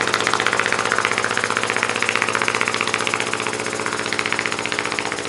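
Model Muncaster table steam engine running fast on steam from a small gas-fired boiler, its exhaust beating in a rapid, even rhythm over a steady low hum. The boiler pressure is near 60 psi, and the owner puts the speed at about 300 rpm.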